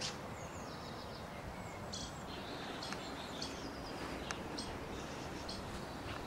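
Faint birdsong: many short, high chirps and twitters over a steady background hiss.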